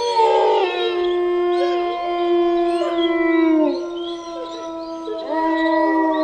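A pack of wolves howling together: several long, overlapping howls held at different pitches, sliding slightly down, with a new howl rising in a little after five seconds.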